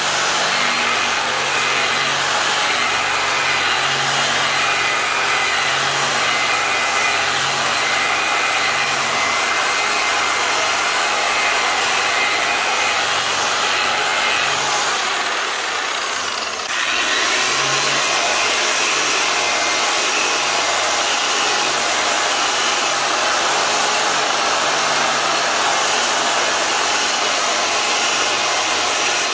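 A 7-inch sander/polisher runs with its abrasive disc pressed against a 1936 Chevy truck's steel fender, a steady grinding rasp of abrasive on sheet metal. The tool is smoothing out file marks left by hand metal-finishing. The sound drops briefly a little past halfway, then picks up again.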